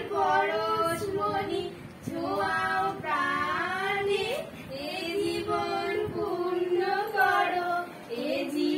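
Two young girls singing a song together without accompaniment, in phrases of held notes with short breaths between them.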